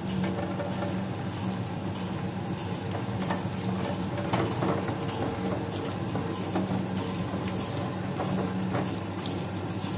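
Electric wet grinder running steadily, grinding soaked rice and dried red chillies: a continuous hum with scattered light clicks.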